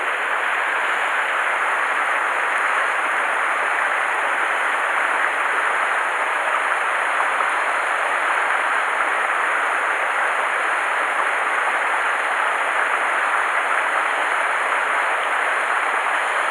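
Small mountain creek rushing steadily over rocks through a shallow riffle.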